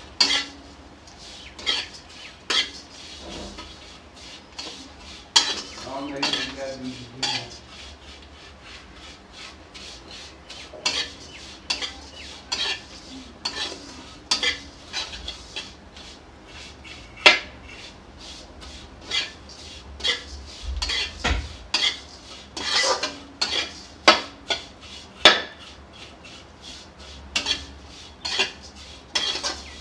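Steel spatula scraping and clinking against a steel kadhai as vermicelli is stirred and dry-roasted in a little ghee, in quick irregular strokes with a few sharper knocks now and then.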